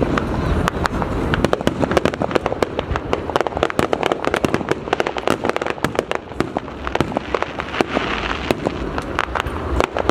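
Fireworks going off in a rapid, dense barrage: a continuous crackle of many sharp pops and bangs over a low rumble.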